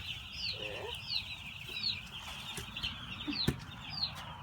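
A flock of chickens calling: a steady chorus of chirps with a high, falling peep repeated about twice a second. There is a single sharp knock about three and a half seconds in.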